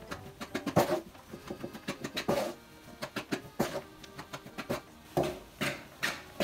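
Rice paddle cutting and turning sushi rice in a wooden hangiri tub: a quick, irregular run of taps and scrapes as the paddle meets the wood and the sticky rice.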